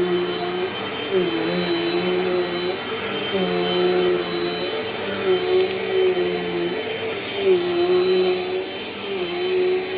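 Dirt Devil Dynamite Plus vacuum cleaner running steadily with a continuous motor whine. Its pitch dips briefly about every two seconds as it works across the floor.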